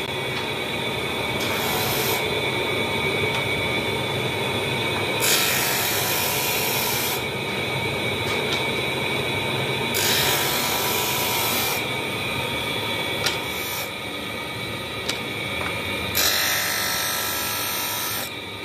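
Vertical spindle grinder with stacked abrasive wheels running steadily while a truck brake lining is pressed against it, grinding its friction material to shape. Three times the grinding turns harsher for about two seconds as the lining is pushed harder into the wheel.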